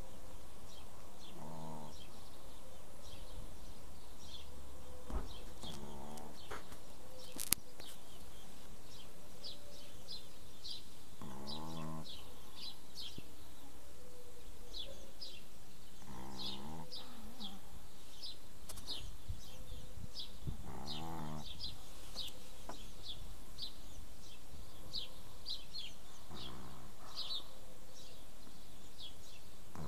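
Pekingese dog snoring in its sleep: about six pitched snores, each half a second to a second long, coming every four to five seconds.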